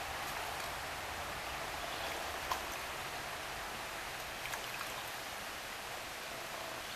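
Steady rush of flowing stream water, with a couple of faint short clicks about halfway through.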